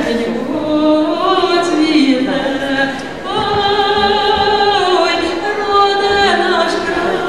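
A woman singing a Ukrainian song solo into a microphone, holding long notes with vibrato and moving slowly between pitches.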